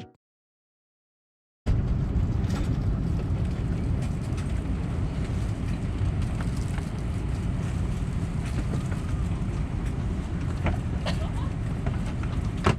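Airbus A319 cabin noise: a steady low rumble, starting after a second or two of silence, with a few small clicks near the end.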